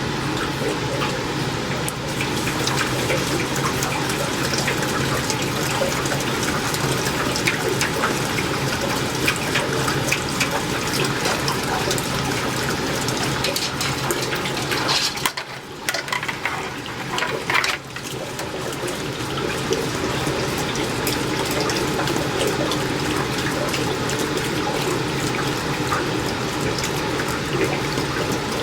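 Water pouring steadily out of a water heater's drain opening into a strainer and container: the tank being drained to flush out hard-water sediment. About halfway through the flow briefly drops off and sputters, then runs steady again.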